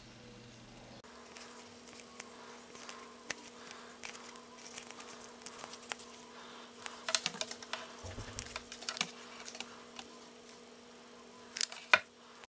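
Satin ribbon rustling and crinkling as it is folded into loops by hand, with scattered small clicks and taps, busiest around the middle and near the end, over a faint steady hum.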